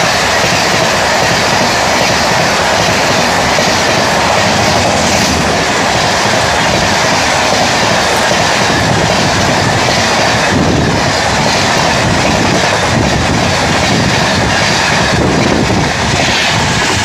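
Express train of LHB passenger coaches passing close by at about 114 km/h: a steady, loud rush of wheels on rail and wind with a rapid clatter. The rush begins to ease near the end as the last coach, a luggage and generator car, goes by.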